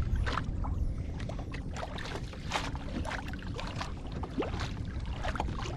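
Small waves lapping and slapping irregularly against the hull of a Hobie Pro Angler kayak, over a low, steady rumble.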